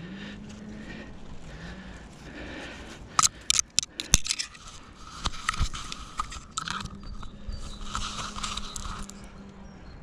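Scraping and rustling of a climber's body and hands against tree bark and thin branches, with a quick run of sharp cracks about three to four seconds in.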